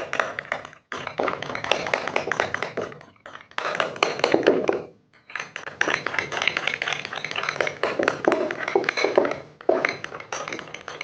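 Glue and shaving foam being stirred in a bowl with a utensil: dense runs of quick taps and clicks against the bowl, in several bouts broken by brief pauses.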